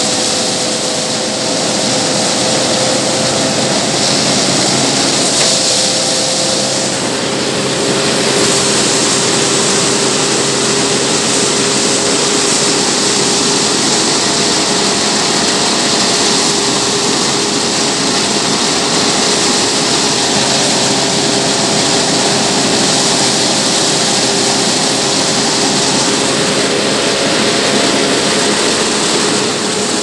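Tractor-driven rice thresher running steadily while straw is fed into it: a loud mechanical whir and hum over a hissing rush of threshed straw. Its hum drops slightly in pitch about seven seconds in.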